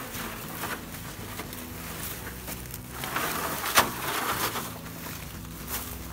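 Footsteps crunching through dry grass and crusted snow, with a plastic crate dragged along behind, rustling and scraping over the ground, and one sharp knock a little past halfway.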